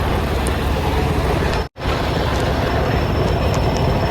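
Semi truck's diesel engine idling, heard as a steady rumble that cuts out briefly a little under two seconds in.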